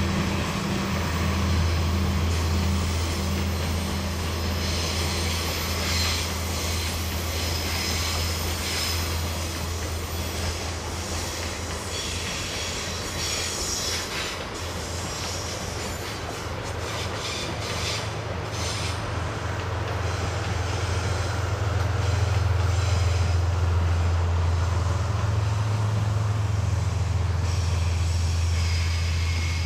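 Diesel train running past, its engine droning low and steady, with wheel squeal and rail clicks in the middle and the engine growing louder in the last third.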